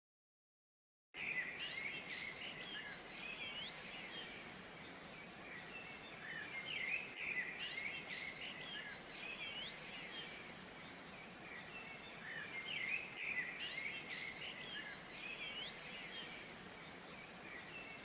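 Many small songbirds chirping and twittering together in quick overlapping high notes, over a faint steady hiss. It starts abruptly about a second in.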